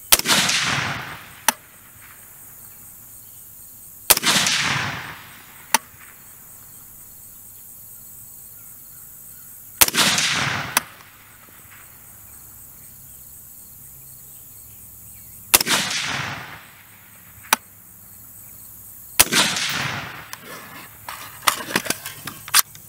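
Five single rifle shots from a 3D-printed AR-15 in 5.56, several seconds apart, each with a long rolling echo. A thin sharp crack follows most shots about a second and a half later. There are a few light clicks near the end.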